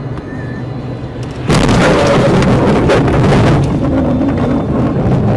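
Steady engine and road hum heard inside a car in a snowstorm, then about a second and a half in a sudden, loud rushing rumble that keeps on: the car ploughing into drifted snow, which sprays against the body and underside as it slews.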